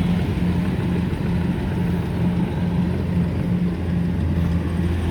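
Rice combine harvester's diesel engine running steadily with a low drone, its pitch wavering slightly as it works.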